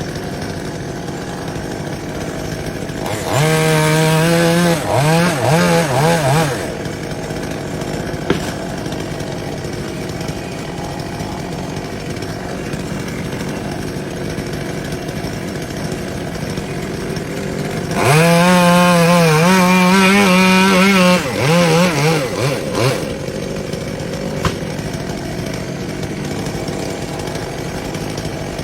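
Chainsaw idling, revved up to high speed twice for about three seconds each, with short throttle blips as it drops back to idle after each run.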